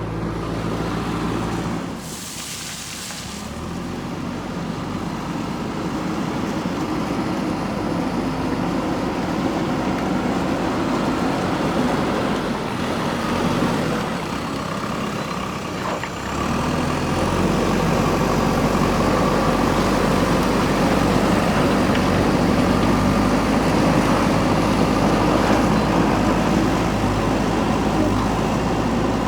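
JCB backhoe loader's diesel engine running steadily while the machine works. A brief hiss comes about two seconds in, and the engine grows louder from about seventeen seconds in.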